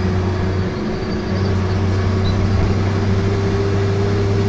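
Optare Vecta single-deck bus's diesel engine droning under way, heard from inside the saloon, with a steady whine that rises slightly in pitch. The low engine note briefly drops away about a second in, then comes back.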